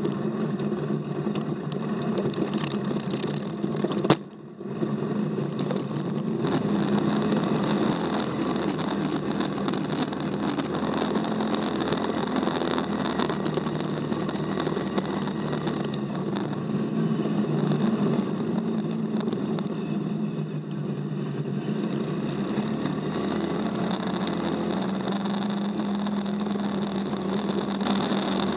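Off-road buggy engine running steadily under way, heard from a camera mounted on the buggy's roll cage, with a sharp click and a brief dropout about four seconds in.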